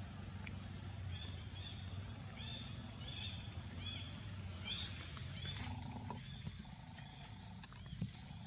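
Short, high-pitched animal calls repeated about two to three times a second, pausing about halfway and then picking up again, over a low steady hum.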